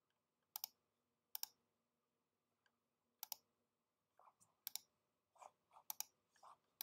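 Computer mouse button clicks, most heard as a quick double tick of press and release, several spaced a second or two apart, with a few softer taps between them.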